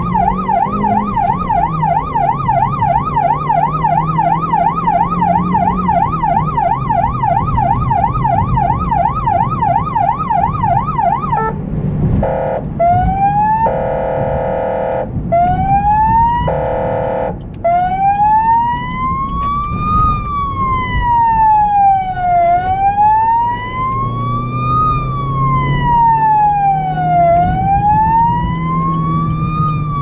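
Electronic emergency siren on a blood-transport car, switching modes: a fast yelp first, then a few short blasts of a steady horn tone about twelve seconds in, then a slow wail rising and falling about every five seconds. The car's engine note rises and falls underneath.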